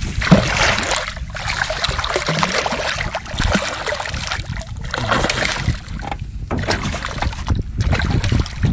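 A hooked red drum thrashing and splashing at the water's surface in irregular bursts as it is worked into a landing net.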